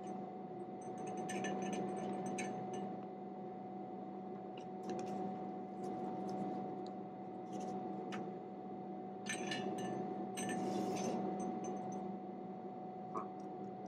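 Paper rustling and small clicks and clinks as a glass test tube and folded paper of sulfur and iron powder are handled, over a steady low hum. The rustling is strongest a little past the middle.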